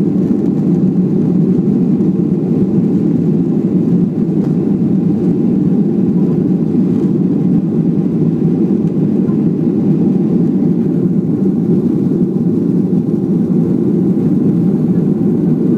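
Boeing 737-400 airliner's CFM56-3 turbofan engines during take-off, heard from inside the cabin as a steady, loud, low drone that does not change.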